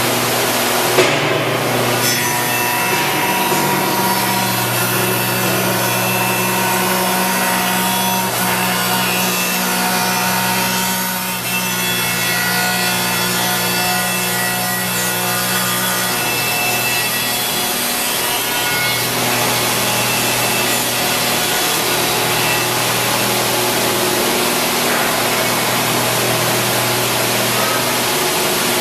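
HH-CNC-85-4TA four-spindle CNC linear profiling machine running: steady motor hum under a loud, even hiss of its cutterheads working wood, with a short knock about a second in.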